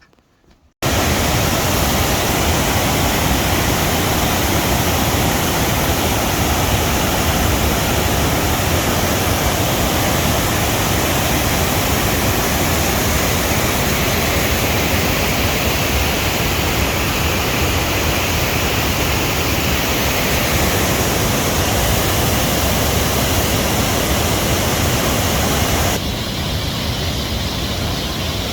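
Waterfall on a river: falling water making a loud, steady rush. It starts suddenly about a second in and drops a little near the end.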